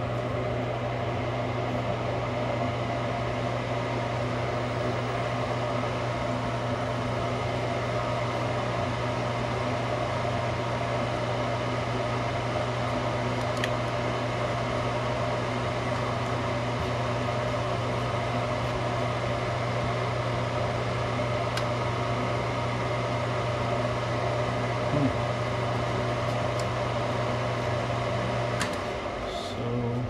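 Draft inducer motor of a Luxaire gas furnace running with a steady low hum, then shutting down near the end. This happens during an ignition attempt in which the gas does not come on and the burners do not light, a fault later traced to a bad gas valve.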